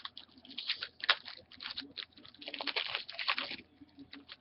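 Crinkling and rustling of trading-card packs and cards being handled, in two dense stretches of crackly clicks.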